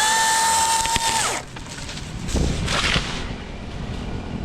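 Battery-powered top-handle chainsaw motor whining at a steady high pitch for about a second, then winding down as the trigger is released. About two and a half seconds in comes a dull thump with rustling.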